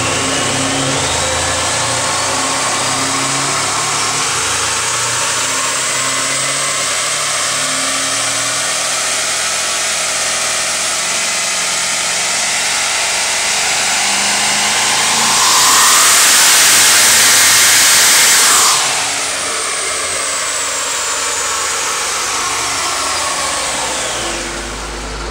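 Twin-turbo Hemi V8 Dodge Challenger running hard on a chassis dyno, its rear wheel driving the rollers, with a whine that rises in pitch over the first several seconds. About two-thirds of the way through, a loud rush of noise lasts about three seconds, then the whine falls in pitch as the wheel slows, the tires smoking.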